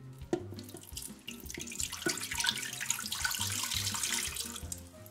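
Apple juice poured from a glass measuring cup into the stainless-steel inner pot of an electric pressure cooker, splashing onto the metal bottom and wire rack. The pour builds about a second in and fades near the end.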